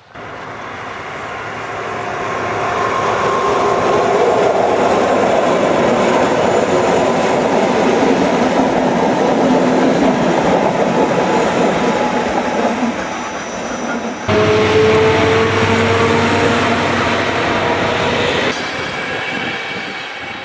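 Czech Railways diesel locomotive hauling passenger coaches past, its engine running loud over the noise of wheels on the rails. The sound builds over the first few seconds, and it changes abruptly about 14 and 18 seconds in.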